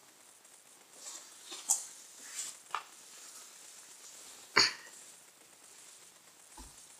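Faint handling noises as an infant car-seat carrier is opened and a baby taken out: scattered soft rustles and light clicks, with one sharper click about four and a half seconds in.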